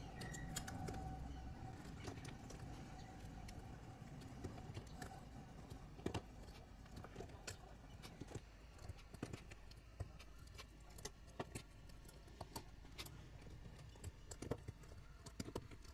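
Faint, scattered clicks and taps as cylindrical 18650 lithium-ion cells are handled, knocking against each other and a plastic cell holder and being set down on a mat.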